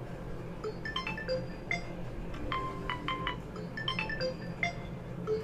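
A phone ringtone playing through the Oppo F17 Pro's built-in loudspeaker: a quick melody of short, chiming, bell-like notes.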